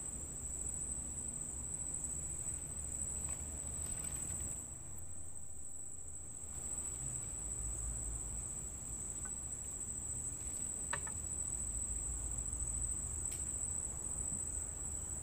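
Crickets trilling in one steady, unbroken high-pitched note, over a low rumble.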